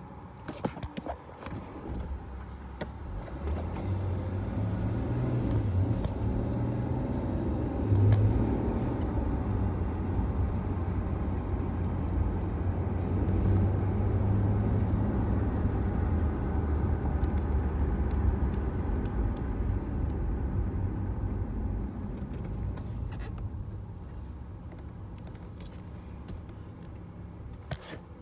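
A BMW car driving, heard from inside the cabin: engine and road rumble build as it pulls away, hold steady for most of the time, then die down as it slows to a stop near the end.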